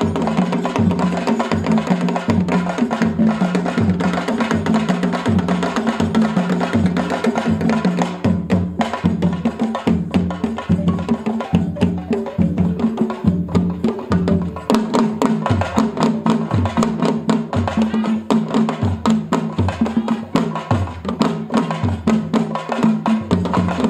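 Traditional West African drum ensemble playing a fast, dense rhythm of hand-struck drums for dancing, the strokes sharper and more distinct in the second half.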